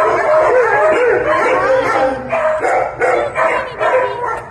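Several kennelled shelter dogs barking and howling at once, overlapping calls that thin out into separate barks in the second half.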